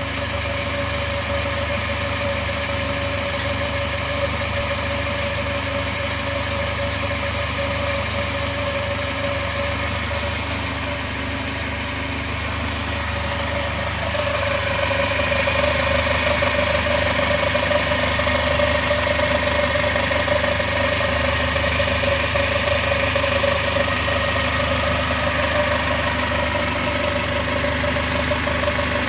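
2017 Camaro's 2.0-litre turbocharged four-cylinder engine idling, with a steady whistling tone running over it that grows louder about halfway through. This is the odd turbo noise the owner is trying to diagnose.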